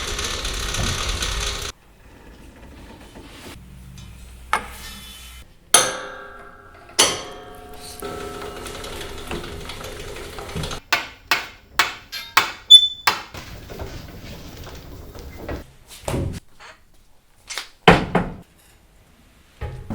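Sharp knocks, taps and clacks of printmaking tools and materials, edited one after another. A steady hiss cuts off abruptly early on. Two hits about six and seven seconds in ring on briefly, and there is a quick run of taps a little past the middle.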